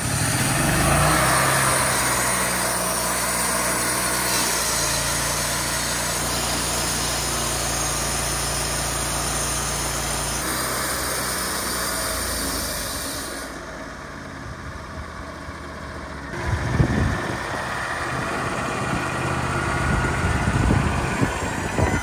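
Engine of a Wood-Mizer LT40 Wide sawmill running steadily at the saw head. The engine sound changes abruptly several times, and is quieter for a few seconds past the middle.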